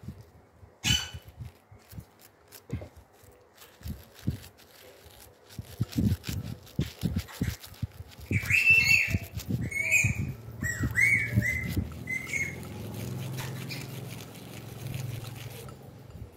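Toothbrush scrubbing a ring in a cut-glass bowl: scattered taps and knocks of the brush and ring against the glass, coming thicker after about six seconds, over a low rubbing rumble. Around the middle comes a short run of high chirping squeaks.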